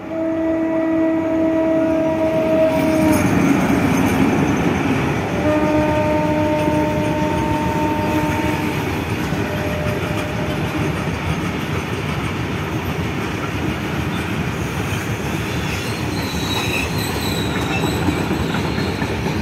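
Locomotive horn sounded twice: a blast of about three seconds at the start and another of about three seconds some five seconds in. Then comes the steady running noise of a BOXN freight train's wagons rolling past, with faint wheel squeal near the end.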